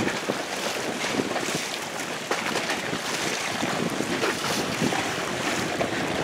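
Steady wind buffeting the microphone over the rush of waves and water around a boat.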